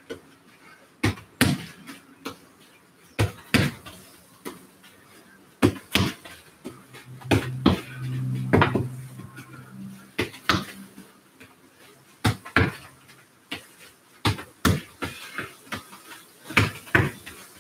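A football kicked with the left foot against a metal screen wall and trapped on the rebound: sharp thuds, often in pairs, every second or so. A low hum swells and fades in the middle.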